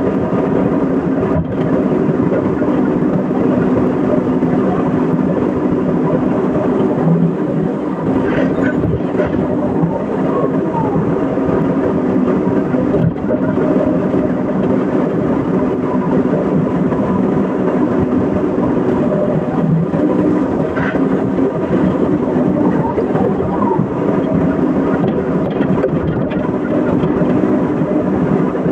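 Excavator's diesel engine running steadily, a dense, even mechanical drone, with a few faint brief squeals now and then.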